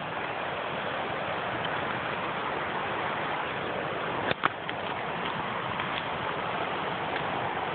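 Steady outdoor rushing noise, even and unbroken, with a short double knock of the handheld phone being handled about four and a half seconds in.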